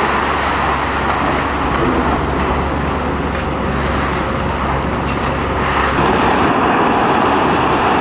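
Heavy demolition machinery running steadily with a low engine drone under a dense wash of noise, with a few sharp knocks. The low drone drops away about six seconds in.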